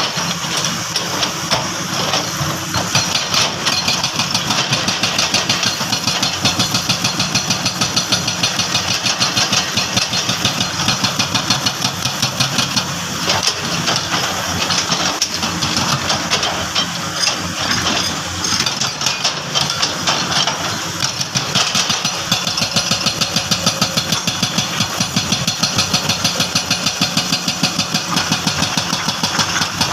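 Engine of a heavy construction vehicle running steadily with a fast, even throb.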